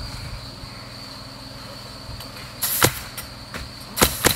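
Pneumatic roofing nailer firing nails through asphalt shingles: one shot with a short hiss about two-thirds in, then two quick shots near the end, part of a six-nail high-wind nailing pattern.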